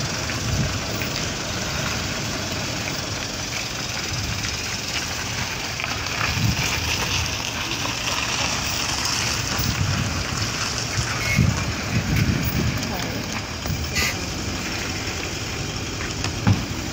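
Toyota Land Cruiser SUVs running at low speed as they pull in and manoeuvre, with indistinct voices around them and a single sharp click about fourteen seconds in.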